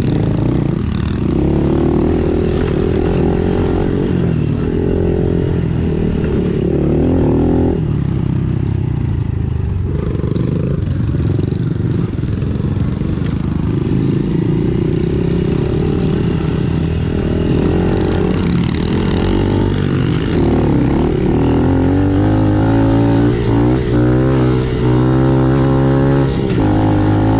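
A Honda CRF110 pit bike's small single-cylinder four-stroke engine, heard close up while riding a dirt trail. Its note rises and falls with the throttle, with quick changes in pitch, and it wavers up and down more in the second half.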